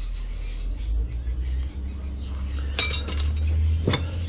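Two sharp metallic clinks about a second apart in the second half, a small hand tool knocking against a metal moulding box, over a steady low hum.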